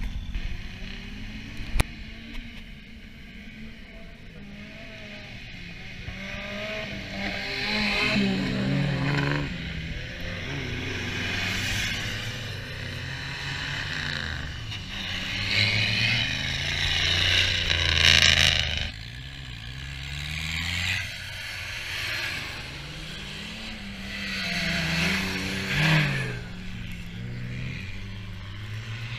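Engines of off-road race buggies revving up and easing off over and over, with the pitch rising and falling and growing loud several times. The loudest run comes a little past halfway.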